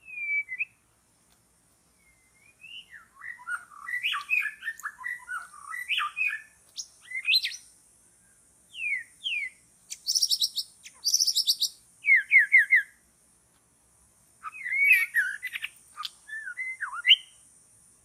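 White-rumped shama singing: a varied string of rich whistled phrases in runs with short pauses, with two fast, higher rattling phrases about two-thirds of the way through. A faint, steady, high hiss runs underneath.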